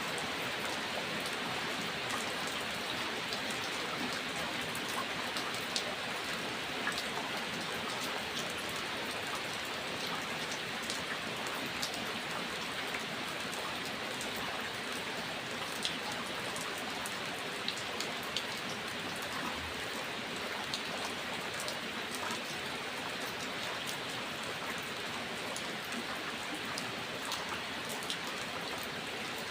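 Steady rain falling, an even hiss with scattered individual drop ticks on a surface.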